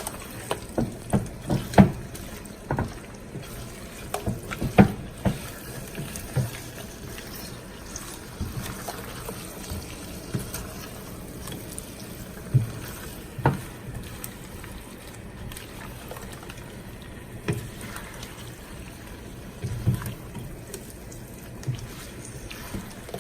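Head-on shrimp bubbling in melted garlic butter in a pan, with a utensil clicking and knocking against the pan at irregular intervals as they are stirred, most often in the first several seconds.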